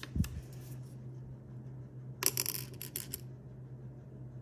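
Small plastic Lego Technic parts clicking and clattering as they are handled on a hardwood floor, with a soft thump just after the start and a cluster of clicks about two to three seconds in. A steady low hum runs underneath.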